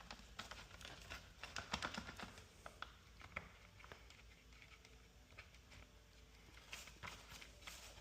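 Faint clicks and taps of plastic vacuum brush-head parts being handled and fitted together, a scatter of small knocks, busier in the first few seconds and again near the end.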